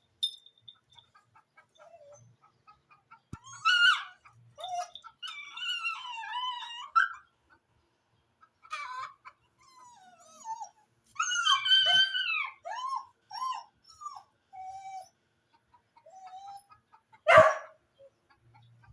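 Agitated dogs squealing and whining in high, wavering cries that come in bursts, with one short, loud sharp cry near the end.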